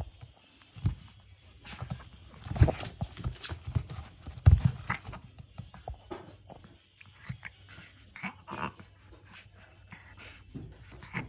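Shih Tzu making short, scattered dog sounds amid knocks and thumps, the loudest thump about four and a half seconds in.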